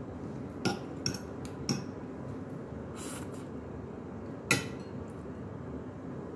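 A metal fork clinking against a ceramic dinner plate a few times, with the loudest clink about four and a half seconds in.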